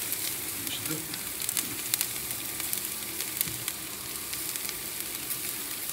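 Chicken thighs sizzling on a hot grill grate as white barbecue sauce is brushed onto them: a steady high hiss with frequent sharp crackles and pops.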